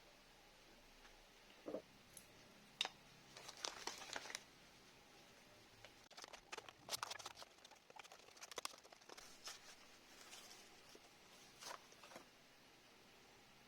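Faint, scattered light clicks and rustling crinkles of small objects being handled, over near silence.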